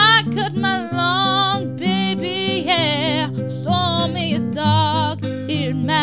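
Acoustic guitar accompanying a woman singing, her held high notes wavering with vibrato.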